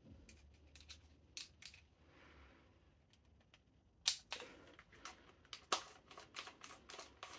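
Faint clicks and light knocks of hands handling an airsoft SMG and a Torx screwdriver. A few clicks come at first, then a closer run of them from about halfway in as the driver is set into the front receiver screw and turned.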